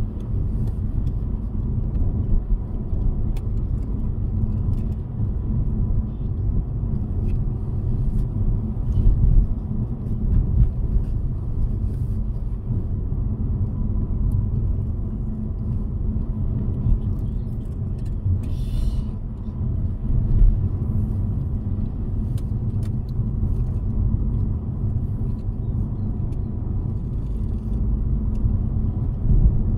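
A car driving, with a steady low rumble of road and engine noise and a few faint ticks and knocks.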